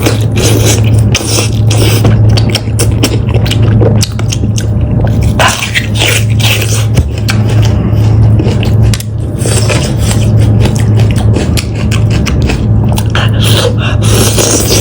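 Close-miked eating of a sheep head: chewing and gnawing at the meat, with many short wet clicks and crackles over a steady low hum.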